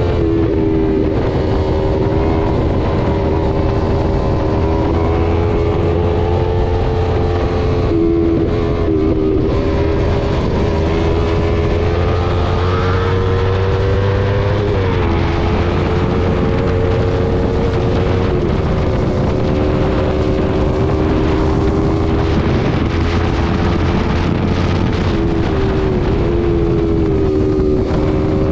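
Sport motorcycle engine running at a steady cruising speed, heard from on the bike; its pitch climbs gently and then drops sharply about halfway through, as with a throttle change or a gear shift.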